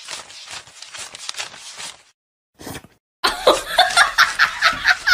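People laughing, first in soft breathy snickers, then after a brief pause in louder, rapid bursts of laughter from about three seconds in.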